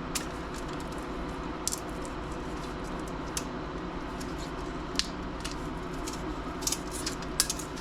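A few small sharp clicks and snaps of laptop plastic and metal parts being handled and pried apart, over a steady low background hum.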